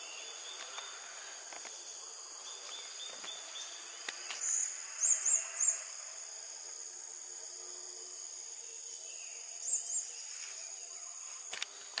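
Steady high-pitched insect chorus. A small bird gives quick runs of two or three short, high chirps about five seconds in and again near ten seconds, with a couple of faint knocks.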